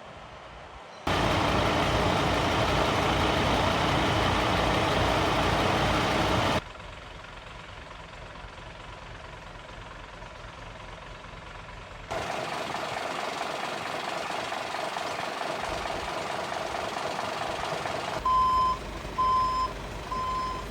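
A loud, even rushing noise for about five seconds, then a quieter stretch, then steadier noise again; near the end a string of short, evenly spaced high beeps at one pitch sounds, the alert tones that come just before a fire dispatch message.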